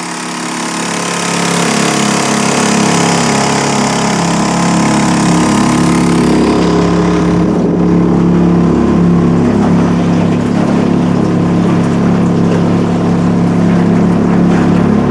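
Honda four-stroke outboard motor on a Progress-4 motorboat, just started and getting under way: it picks up speed over the first couple of seconds, then runs steadily. A high hiss over the engine drops away about seven seconds in.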